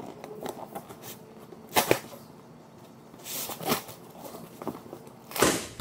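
Large cardboard box being torn open by hand: flaps pulled apart and cardboard ripping and scraping, with louder rips about two seconds in, mid-way, and near the end.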